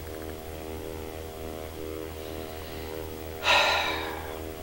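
A man breathes out heavily once, about three and a half seconds in, over a steady electrical hum.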